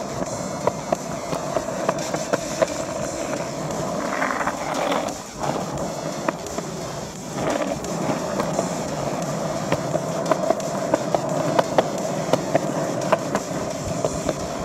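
Skateboard wheels rolling on a concrete sidewalk: a steady rumble with sharp clicks about twice a second as the wheels cross the slab joints. The rumble dips briefly about five seconds in.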